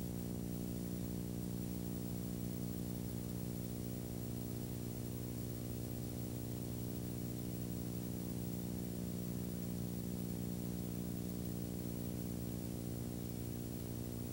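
Steady low electrical hum and buzz over faint hiss, unchanging.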